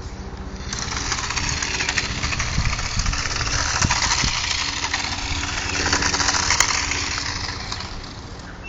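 Toy remote control car driving on a driveway: its small electric motor whirring and plastic wheels rattling over the concrete. The sound swells about a second in and fades near the end, over a steady low hum.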